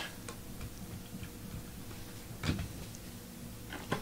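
Trading cards and packs being handled on a table: a few light taps and clicks, the plainest about halfway through and another near the end.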